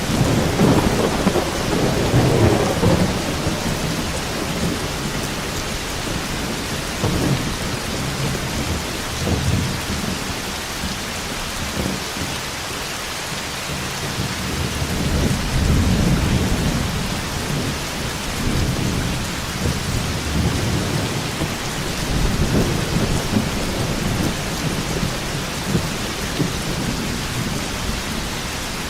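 Thunderstorm: steady heavy rain with rolls of thunder, the strongest in the first few seconds and more rumbling around the middle and later on.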